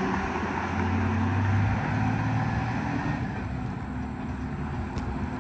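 A loaded truck's diesel engine pulling away, its steady hum slowly fading as the truck drives off down the road.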